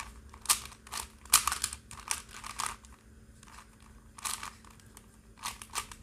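A 4x4 Rubik's cube being turned by hand: its plastic layers click and rasp in quick runs of turns, with a pause of about a second in the middle.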